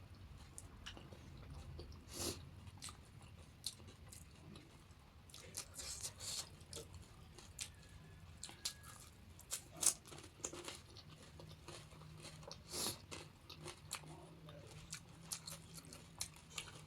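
Crisp panipuri shells crunching and being chewed close to the microphone, in irregular crackles with a few louder bites about 2, 10 and 13 seconds in.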